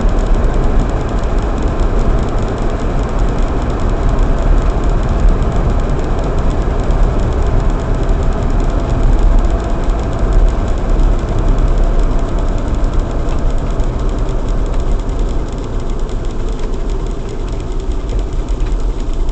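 Car driving along a road, heard from inside the cabin: a steady mix of engine and tyre noise with a strong low rumble, easing slightly near the end.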